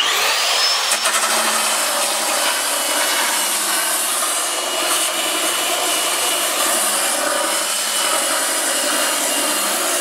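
Handheld electric belt sander starting with a quick rising whine, then running steadily as its belt grinds along the edge of plywood hull strips, shaping the edge to a bevel.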